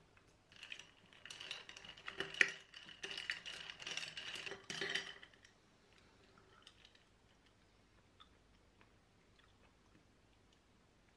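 Eating instant noodles from a saucepan: for about five seconds, irregular clicks of utensils against the pot mixed with eating noises. After that only a few faint clicks.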